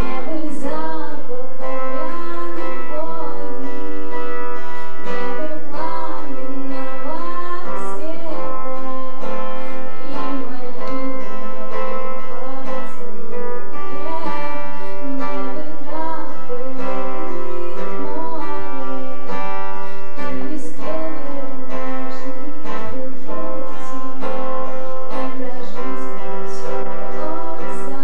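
Music: a song passage without words, with plucked strings and a wavering melody line over steady sustained notes.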